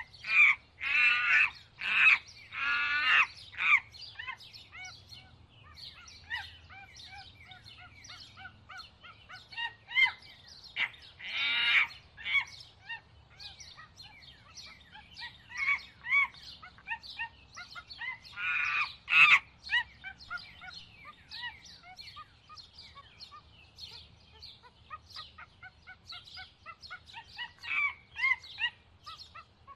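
Many birds chirping and calling, a busy woodland chorus of short chirps with clusters of louder calls at the start, about twelve seconds in, and again about nineteen seconds in.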